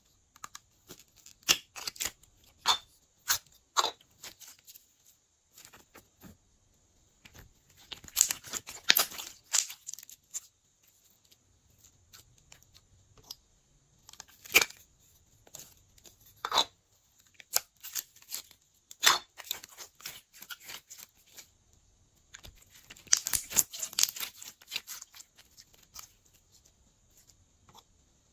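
Slime squeezed out of soft plastic pumpkin-shaped cups into a bowl of glossy slime: irregular sticky clicks, crackles and squelches in short clusters, with quiet gaps between.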